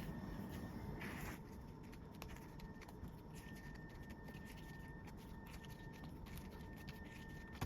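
Faint handling noise: a few light taps and a soft rustle, as of photocards and their plastic sleeves being moved about, over low room noise.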